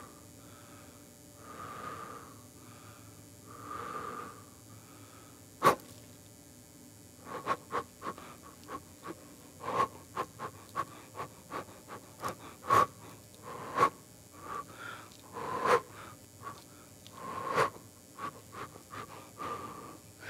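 A person breathing heavily and audibly: three slow breaths about two seconds apart, then a long run of sharp snorts, sniffs and clicks, irregular and at times several a second.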